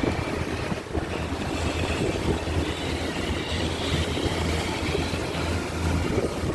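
Boat engine running steadily with a constant low drone, wind buffeting the microphone over it.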